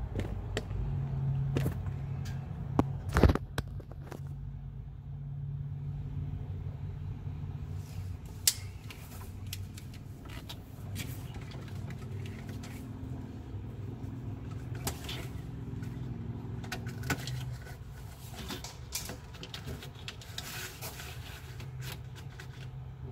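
Scattered clicks and knocks of wiring and connectors being handled in an RV battery compartment, with a sharp knock about three seconds in, over a steady low hum.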